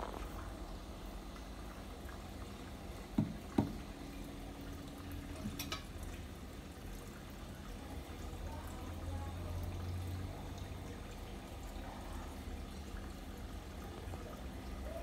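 Aquarium filter running, a steady low hum with faint trickling water. Two sharp clicks come a little after three seconds in, about half a second apart.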